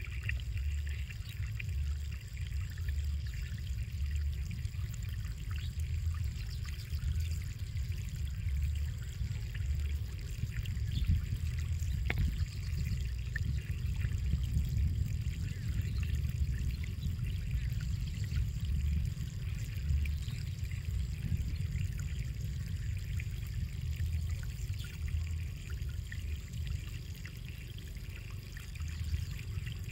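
Wind buffeting the microphone outdoors: a steady low rumble that swells and fades unevenly, with a single faint click about twelve seconds in.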